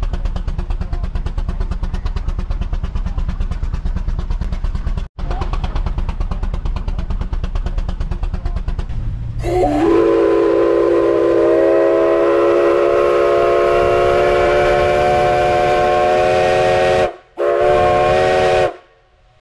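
A steam traction engine running with a fast, even beat. About halfway through, the A.D. Baker Uniflow 19-65 steam traction engine's steam whistle gives a long blast of several tones held together, rising slightly as it opens. It breaks off briefly and sounds again for a short second blast.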